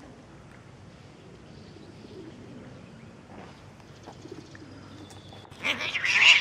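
Domestic cats in a mating tussle: faint low yowls, then about five and a half seconds in a loud, harsh cat screech and hiss that lasts under a second, as the pair breaks apart.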